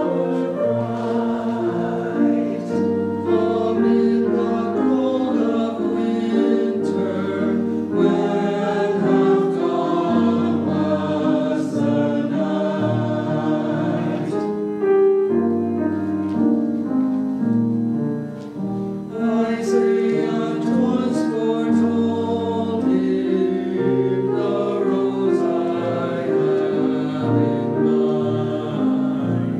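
Church choir singing in harmony, moving through a series of held chords, with a short break between phrases about two-thirds of the way through.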